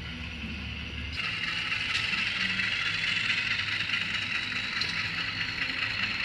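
HO-scale model of a CC206 diesel locomotive running with its digital sound decoder, playing diesel engine sound from its small speaker. About a second in the sound shifts, getting louder and higher-pitched.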